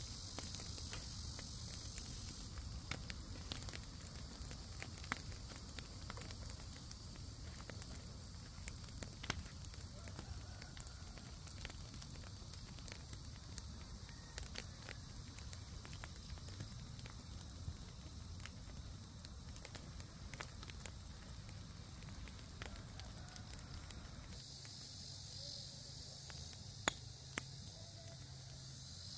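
A burning heap of dry grass and crop stalks crackling, with scattered sharp pops over a low steady rumble and a couple of louder pops near the end.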